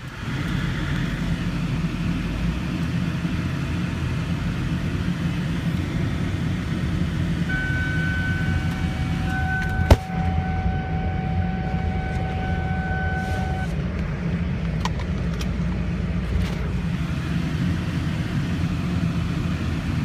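Steady low engine and road noise heard inside the cabin of a 2002 Ford Thunderbird as it drives at low speed, its 3.9-litre V8 at light load. A faint steady whistling tone sounds for several seconds in the middle, and a single sharp knock comes about ten seconds in.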